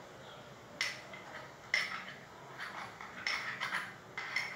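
A spoon clinking and scraping against a glass bowl while stirring a thick cornflour-and-shampoo paste. The clicks are irregular, with a quick run of them a little past the middle.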